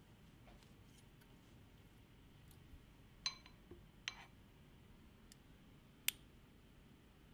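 Three light clinks of spoons against soup bowls, about three, four and six seconds in, the first two with a short ring, over quiet room tone.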